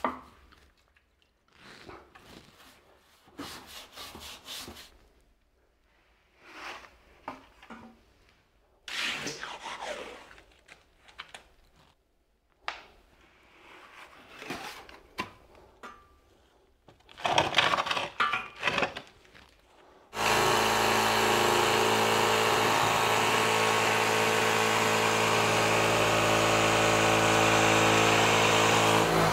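Quiet scraping and brushing of a brush and trowel on wet wooden boards and concrete. About two-thirds of the way in, a Ryobi cordless reciprocating saw starts and runs at a steady speed for about nine seconds, pressed against the wooden form of freshly poured concrete to vibrate it and settle the concrete.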